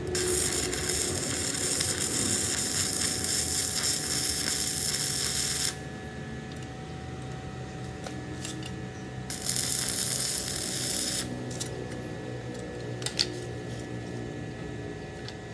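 Hydraulic press running with a steady hum. A loud hiss comes in twice, first for about six seconds and then for about two seconds, and there is a sharp click near the end.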